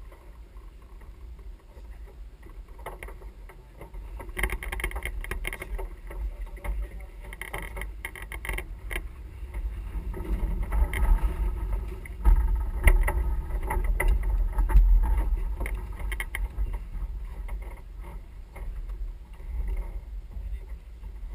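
Wind rumbling on the microphone and water rushing past the hull of a sailing yacht under way, with scattered clatters and bursts of crew noise from the deck. The rumble swells in the middle and eases toward the end.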